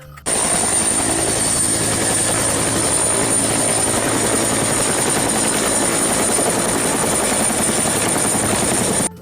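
Helicopter sound: a steady rotor and engine noise with a high whine. It cuts in suddenly and stops abruptly about nine seconds later.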